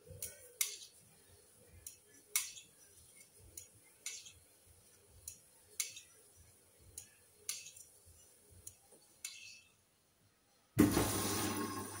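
Hoover front-loading washing machine tumbling a wash load: hard clinks against the drum come in pairs about every two seconds, over soft thuds of wet clothes falling. Near the end the drum stops briefly and a loud, steady rush of water starts suddenly as the machine takes in more water.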